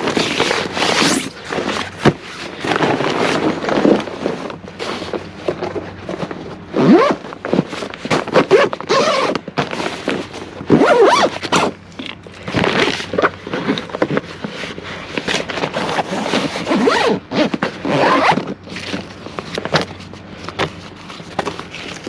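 Tactical gear being handled: an irregular run of short rasping strokes, scrapes and small knocks.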